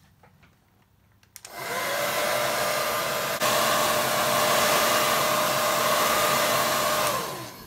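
Handheld electric hair dryer switched on with a click about a second and a half in, running with a steady rushing blow over a motor whine. It gets louder with another click about halfway through, then is switched off near the end, its whine falling in pitch as it spins down.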